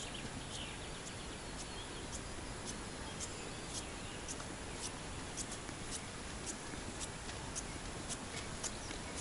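Footsteps through tall grass, about two a second, growing louder as the walker comes closer, over a steady outdoor hiss. A bird chirps briefly near the start.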